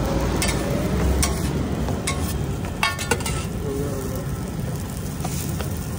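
Buttered kulchas sizzling on a large flat street-stall griddle (tawa), with a few sharp knocks and taps of brush and hands against the griddle, the loudest cluster about three seconds in.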